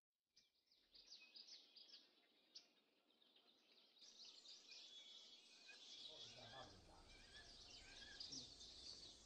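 Very faint outdoor ambience with small birds chirping: a few sparse high chirps at first, then a steadier chatter of chirps from about four seconds in.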